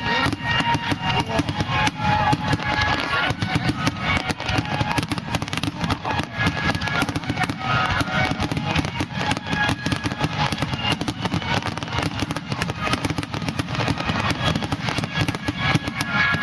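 Aerial fireworks bursting in a dense, rapid barrage of bangs and crackles, with music playing throughout.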